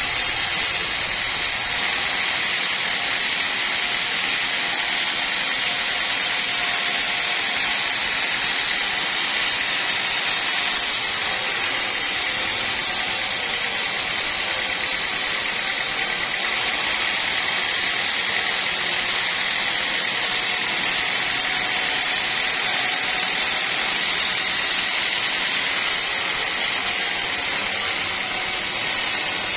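Band sawmill cutting a teak log lengthwise, its blade running steadily through the wood with a continuous high hiss and a thin steady whine.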